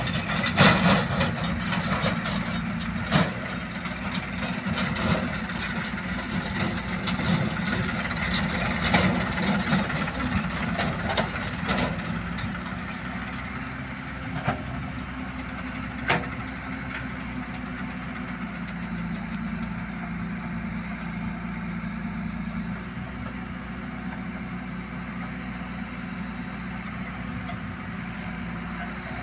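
JCB 3DX backhoe loader's diesel engine running steadily under work, with scattered sharp knocks and clanks through the first half. From about halfway it settles to a steadier, slightly quieter run.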